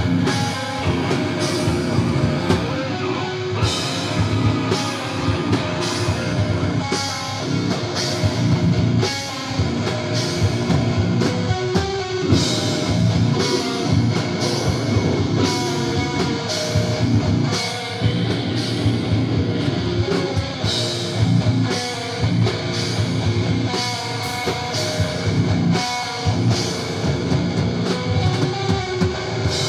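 Live heavy rock band playing: distorted electric guitars over a drum kit, with cymbal and snare hits in a steady beat.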